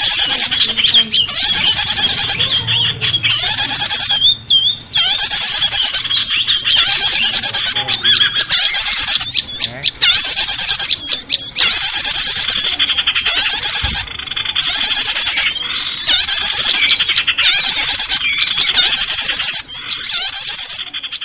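Bird-luring call track: a loud, dense chatter of many small birds' rapid chirps and squeaks, coming in runs broken by short pauses.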